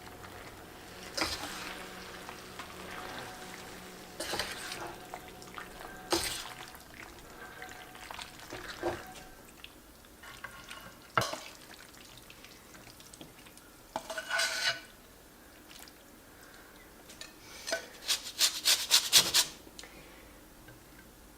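Utensils clinking and scraping against a dish while pasta is stirred and served during eating, with scattered clicks and a quick run of taps near the end.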